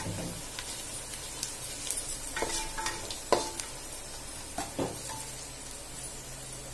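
Sliced onions frying in oil in a nonstick pot over low heat, sizzling steadily while a wooden spoon stirs them, knocking against the pan several times. The onions are still pale, not yet browned.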